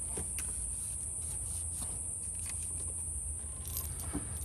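Steady high-pitched insect buzzing in the background, with a few faint light clicks from hand work as a bolt is started into the plastic intake manifold.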